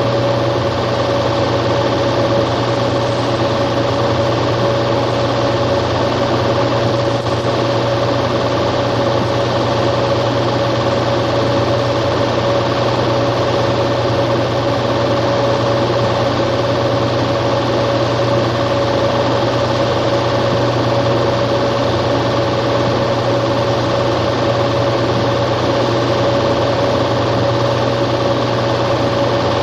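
A small machine running steadily, with a constant high-pitched hum over a low drone and hiss that does not change at all.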